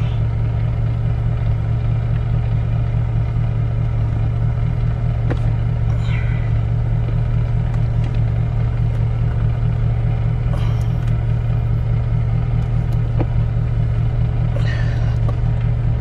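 Steady low hum of a car's air conditioning running in the cabin, with a couple of faint clicks as the two halves of a carbon-fibre shift knob are pushed together on the shifter.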